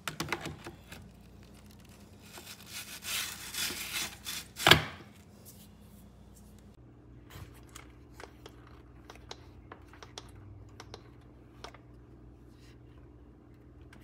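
Plastic parts of a Hoover ONEPWR cordless upright vacuum being handled: clattering and rustling with one sharp knock about five seconds in, then a run of light clicks as its power and mode buttons are pressed. No motor starts.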